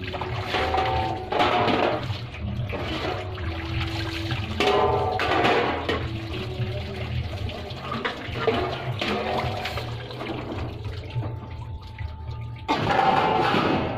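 Water splashing and sloshing in a large metal basin as it is washed or rinsed by hand, in repeated surges every second or two.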